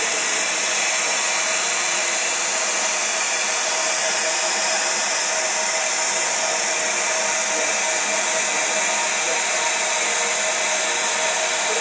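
Water rushing from a water column's hose into a steam locomotive's tender tank: a steady, unbroken gushing hiss as the tender is filled.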